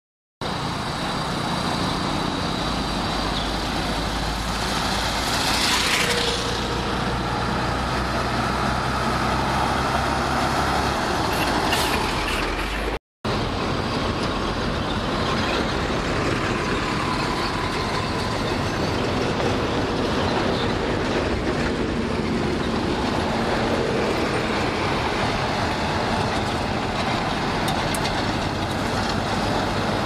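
Shantui SD16 bulldozer's diesel engine running steadily under load as it pushes soil and rocks. After a sudden cut about 13 seconds in, a loaded dump truck's diesel engine runs amid road traffic noise.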